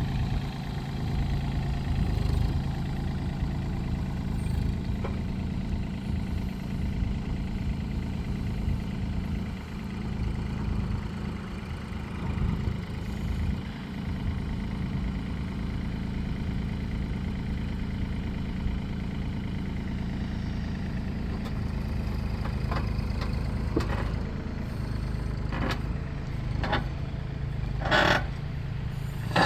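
Hyundai Robex35Z-9 compact excavator's diesel engine running steadily, with a series of sharp knocks in the last third, the loudest about two seconds before the end.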